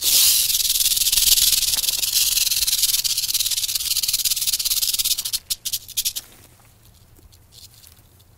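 Rattlesnake shaking its tail rattle: a dense, high-pitched buzz that starts abruptly and runs steadily for about five seconds, then breaks into a few short sputters and stops, leaving faint scattered ticks.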